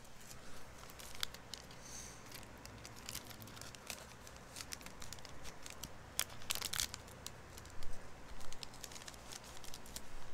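Trading card packaging crinkling and rustling as cards are handled, with scattered light clicks and a louder crinkle about six and a half seconds in.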